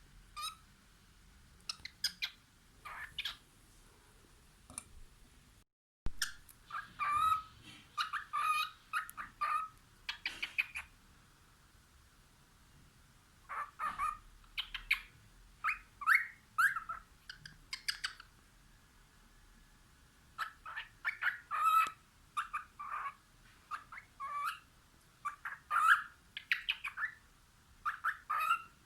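Cockatiel singing: quick runs of short chirps and whistled notes, in several bouts with pauses of a second or two between them.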